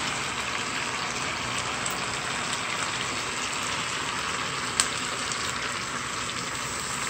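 Pig trotters sizzling steadily in a hot pot as chopped seasoning is tipped in on top, with one sharp click about five seconds in.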